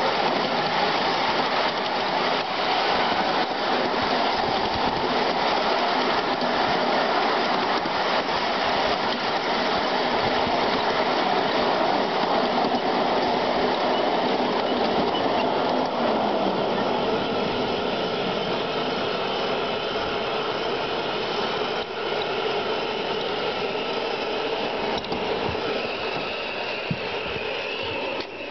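Ride-on miniature locomotive and its riding car running on a raised club track: a steady mechanical rumble and clatter of steel wheels on the rails with a whir from the running gear. The level eases down a little in the last few seconds.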